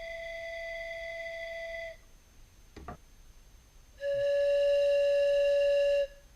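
Homemade copper and aluminum steam train whistle sounding two steady blasts. The first is already sounding and cuts off about two seconds in. A louder, slightly lower-pitched blast follows near the end and lasts about two seconds.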